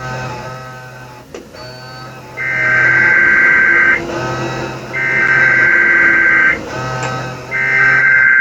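Emergency Alert System SAME header: three bursts of warbling two-tone data near 1.5 and 2 kHz, each about a second and a half long with about a second between them. A Sage ENDEC sends them as it relays a practice demo alert. A low electrical buzz fills the gaps between bursts.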